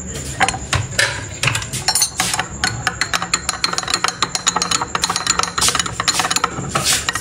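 A spoon clinking and tapping against a dish, many quick irregular clicks, while honey and ginger water are measured and mixed for a cough remedy.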